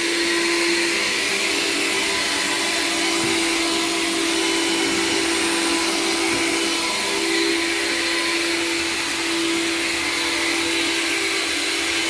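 Electrolux Ergorapido cordless handheld vacuum running steadily with its small brush nozzle on a baseboard: a constant motor hum over the rush of air.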